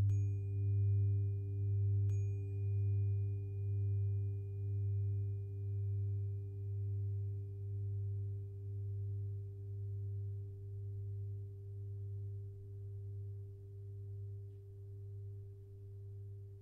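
A 396 Hz tuning fork is struck at the start and again about two seconds in. Each strike gives a sharp click, then a pure ringing tone with a faint high overtone that fades slowly. Underneath is a deep singing bowl hum that wavers about once a second and gradually dies away.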